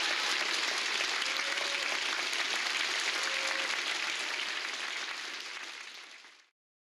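Theatre audience applauding steadily, then fading out over the last two seconds and cutting off.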